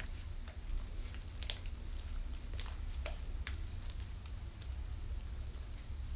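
Faint squelches and small sticky clicks of black magnetic slime (glue, liquid starch and iron filings) being squeezed and kneaded by hand, still sticky enough to cling to the fingers, over a low steady hum.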